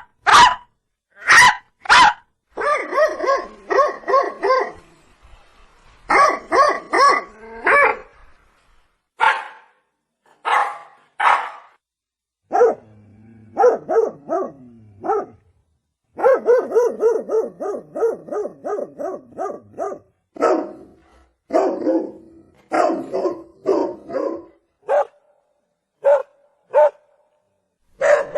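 Dog barking: single barks a second or more apart, alternating with quick runs of several barks a second.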